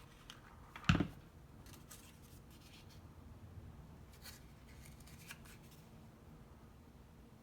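Handling noise of cardstock paper pieces being worked by hand: a short, loud crinkle or knock about a second in, then a few faint taps and rustles.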